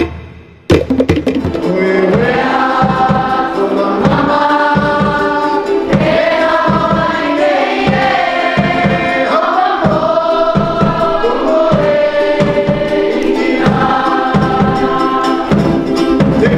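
Voices singing a Cook Islands Māori song together over a steady drum beat, starting after a short gap just under a second in.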